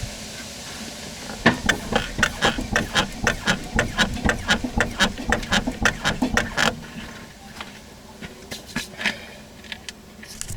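Car's rear suspension strut knocking and creaking as the body is rocked by hand: a quick run of knocks about four a second for several seconds, then a few scattered ones near the end. The knock comes from rattling strut cups.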